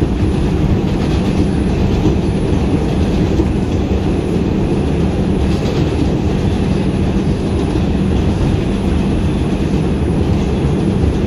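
Inside a New York City Subway 2 train car running between stations on elevated track: the steady rumble of the wheels on the rails, with a low hum underneath.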